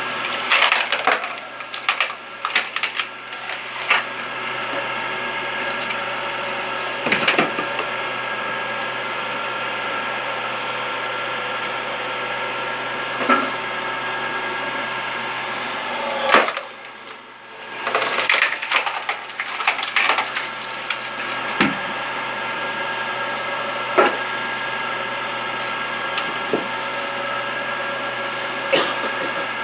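Electric motor of a homemade screw-cone log splitter running with a steady hum while its threaded cone bores into logs. The wood splits with repeated cracking, splintering and crunching in several bursts.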